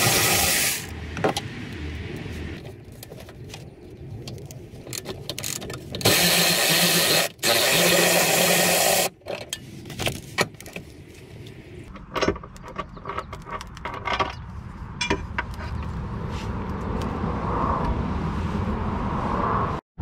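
Handheld power driver spinning out the bolts of the towing eyelet bracket, in two runs: a short one ending about a second in and a longer one of about three seconds in the middle. Metal clicks and tool-handling noises follow as the parts come free.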